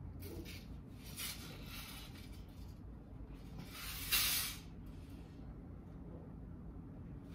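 Soft rustling swishes from hands working at a wooden floor loom's harness and heddles, three of them, the loudest about four seconds in, over a low steady room hum.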